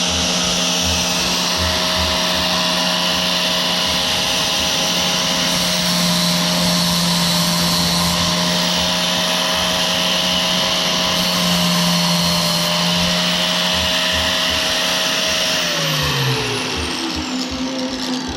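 An electric power tool motor runs at a steady speed with a loud hiss of metal being worked, then is switched off and spins down with a falling pitch about three-quarters of the way through.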